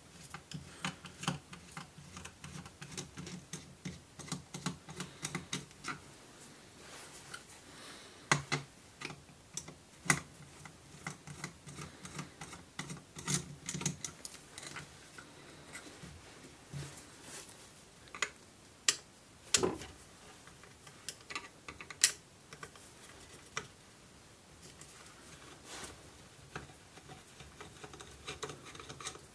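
A screwdriver turning out the stock screws of a Stoeger X20 S air rifle: a busy run of small metal clicks and scrapes, thicker in the first half. A few sharper knocks stand out, around 8, 10, 20 and 22 seconds in.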